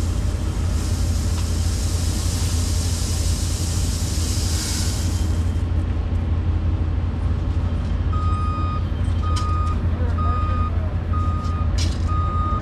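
Excavator engine running steadily, heard from inside the cab, with a hiss for the first few seconds. About eight seconds in, a machine's backup alarm starts beeping, a single-pitch beep repeating a little under twice a second.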